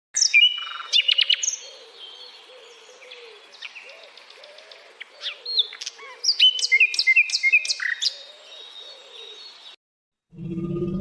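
Birds chirping and whistling: quick runs of sharp chirps and varied whistled calls. The sound cuts in and cuts off abruptly.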